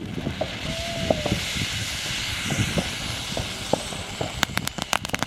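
Fountain ("waterfall") firework spraying sparks with a steady hiss; about four seconds in it starts crackling rapidly.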